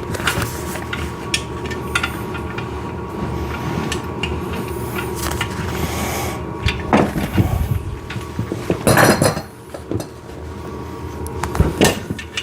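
Clinks and knocks of steel parts, bolts and washers being handled while a padded back rest is held and shifted against a chest press frame to line up its bolt holes, with louder knocks about seven and nine seconds in. A steady faint hum sits underneath.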